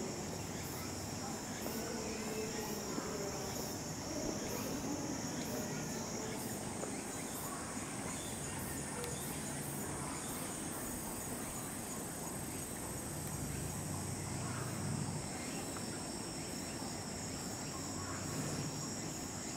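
Insects chirring steadily, with a fast, high pulsing trill over a continuous high hum.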